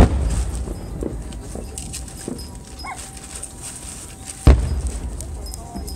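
Aerial firework shells bursting: a loud boom right at the start and another about four and a half seconds in, each followed by a low rumbling echo that dies away.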